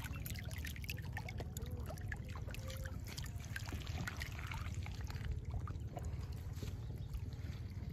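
Shallow muddy water running and trickling through a rice-field channel, with many small splashes as fish wriggle in it, over a steady low rumble.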